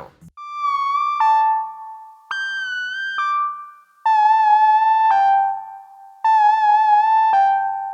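Prophet-6 synthesizer playing a one-note-at-a-time lead melody of about eight held notes. The patch is two detuned sawtooth oscillators with a touch of reverb, giving a trumpet-like tone, and the notes waver slightly in pitch.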